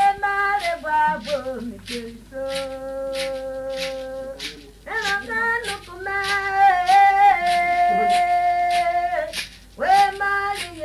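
Singing from a 1965 tape recording: a voice holds long, drawn-out notes with slides between them over a steady percussive beat of about two to three strokes a second. The singing breaks off briefly twice, with a faint low hum under it all.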